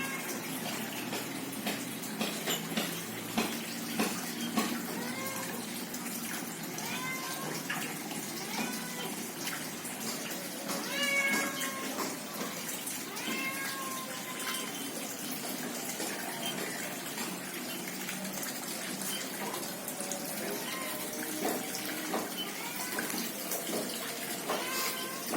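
Steady trickling of pond water, with short pitched animal calls rising and falling over it a dozen or so times.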